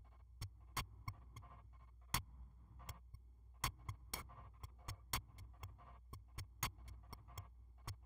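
Sparse, faint clicks and short blips from a Kyma synthesis patch, coming irregularly at about three a second over a low hum. A short random duty cycle keeps them sparse.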